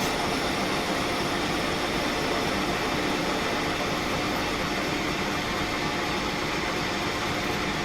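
Smart & Brown lathe running steadily while a parting tool is fed straight in to cut off an 8 mm stainless steel rod.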